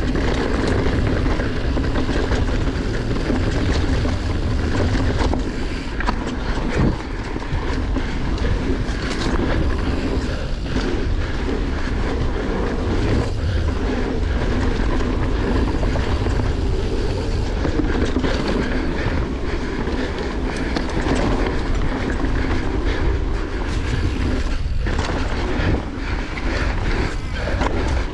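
Scott Genius full-suspension mountain bike ridden along dirt singletrack: a steady rush of wind on the microphone and tyre rumble, with the chain and frame rattling and clicking over small bumps.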